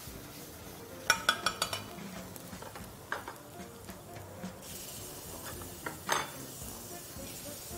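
Metal utensils clinking against stainless-steel pans and bowls: a quick run of about six ringing taps about a second in, a single clink near three seconds, and a louder ringing clink about six seconds in. Underneath is a faint steady sizzle of onions frying in the pan.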